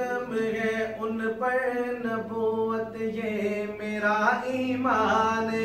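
A man's solo voice chanting a naat in long held, wavering notes, the melody sweeping upward about four seconds in and again near the end.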